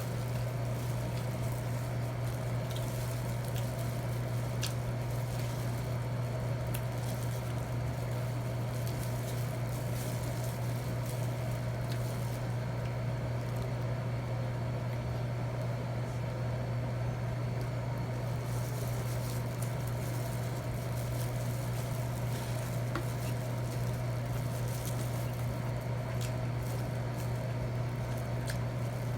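A steady low hum runs throughout, with a faint hiss over it and a few soft scattered clicks and taps, as of cutlery on a plate during a meal.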